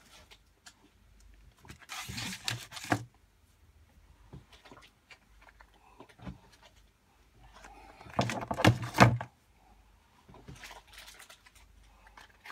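Off-camera handling noise of small items being packed away: rustling and light knocks of bottles and pots going back into their packaging. It comes in two bursts, about two seconds in and, louder, about eight seconds in.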